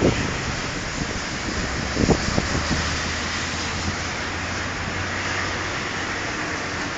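Steady rushing noise of storm wind and rain around a tornado, with a few brief gusty thumps about two seconds in and a low engine hum underneath for a few seconds.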